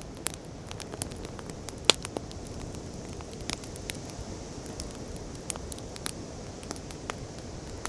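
Wood fire crackling, with irregular sharp pops and snaps, the loudest about two seconds in, over a steady low rushing noise.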